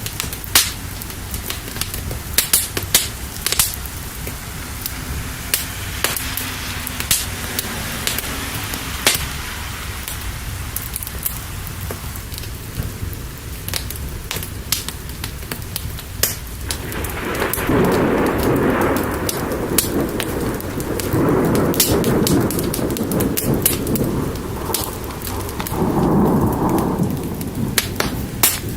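Steady rain with a fire crackling in sharp pops. About two-thirds of the way in, thunder starts to rumble low and loud, and it comes in several swells toward the end.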